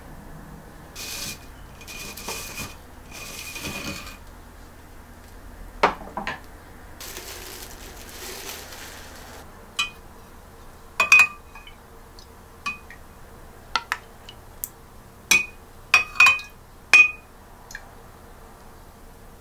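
A metal ladle stirring in a glass jar of plum syrup and knocking against the glass, with a dozen or so sharp, ringing clinks in the second half. Before that come a few rubbing scrapes.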